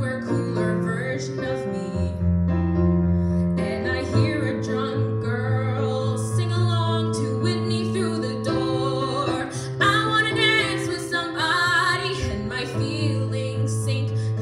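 A girl singing live over sustained chords from a Kawai MP11 digital stage piano, her voice holding wavering notes.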